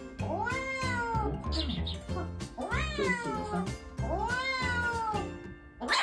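Kitten giving three long, drawn-out meows, each rising and then falling in pitch, in protest while getting an injection in its hind leg. Background music plays underneath.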